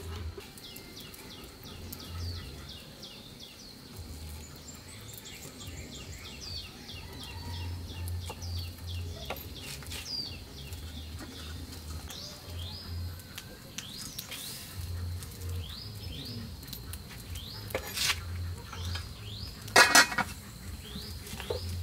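Small birds chirping over and over in the background. Near the end there is a short, loud metallic clatter, a pot lid being set on a cooking pot.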